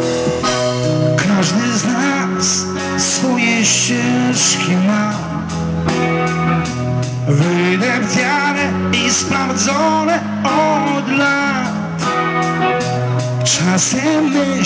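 Live rock band playing electric guitars, bass and drums, with a man singing lead. It is heard loud through the PA, with the voice coarse from being recorded close to a loudspeaker.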